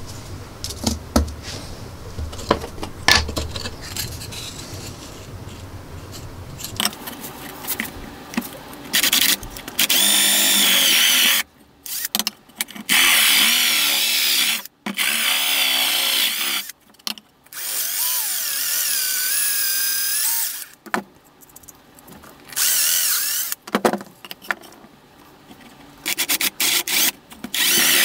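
Light clicks and knocks of small plywood pieces being handled, then, from about nine seconds in, a power drill with a cone-shaped bit boring holes through thin plywood. The drill runs in repeated bursts of one to three seconds, its whine wavering as the bit cuts.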